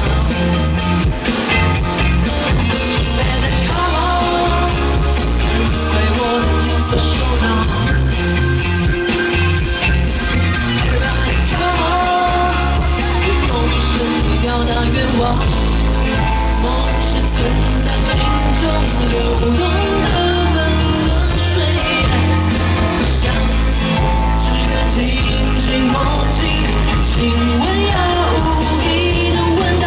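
A live band plays a pop-rock song at full volume through a concert PA while a woman sings lead into a microphone, over a heavy bass line and a steady drum beat.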